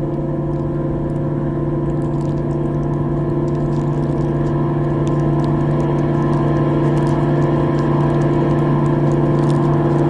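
Intro music: a steady low droning chord that swells gradually louder.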